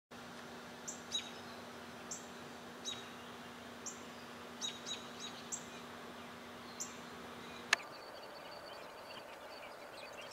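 A bird giving short, high chirps that slide downward, about a dozen over seven seconds, over a steady outdoor hiss and a low steady hum. A single sharp click near the end is the loudest sound, and the hum stops with it.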